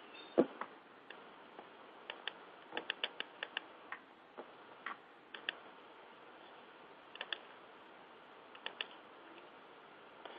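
Faint, irregular clicking from a computer keyboard and mouse: a louder knock about half a second in, a quick run of about six taps around three seconds in, then scattered single and paired clicks.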